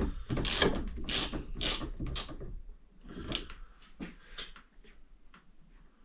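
Hand ratchet clicking in a series of short strokes, about two a second and fading toward the end, as a 24 mm socket backs out the compression valve on a WP XPLOR rear shock.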